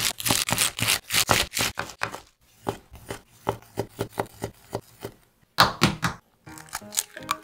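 Kitchen knife chopping spinach on a wooden cutting board: a quick run of strokes, then slower single cuts about two a second through a sausage. Near the end there is a short louder clatter, and then a gentle melody starts.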